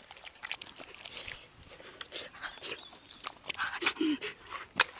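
Wet, sticky smacking and squelching of bare hands rubbing a thick red spice paste into the skin of a raw pig's head, in quick irregular clicks, with one sharper smack just before the end.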